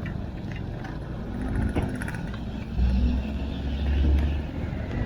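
A motor vehicle running on a rain-soaked road, with a steady low rumble that swells louder for a second or two about three seconds in.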